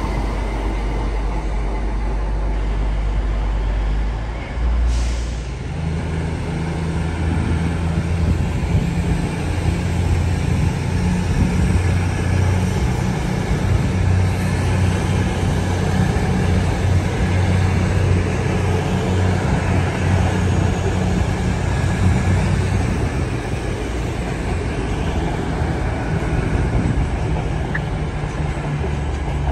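Diesel train's engine running at a station. A short air-brake hiss comes about five seconds in, after which the engine note steps up and stays louder as the train takes power.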